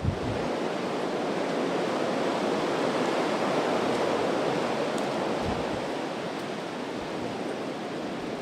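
Severe thunderstorm wind rushing steadily through trees, a continuous hiss-like roar that swells slightly in the middle and eases a little toward the end.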